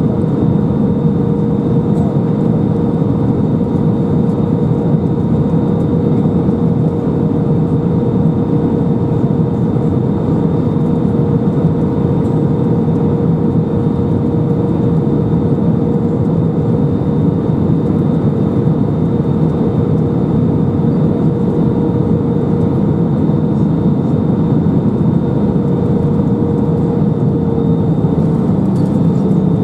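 Airbus A319 cabin noise at a window seat over the wing: the jet engines' steady drone and rushing airflow, with a steady hum.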